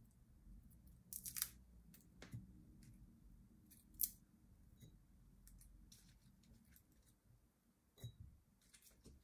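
Crisp crackles and snaps of dry papery skins and stems as crow garlic heads are pulled apart and peeled by hand, a few sharp ones spread out, the loudest about four seconds in, over faint room hum.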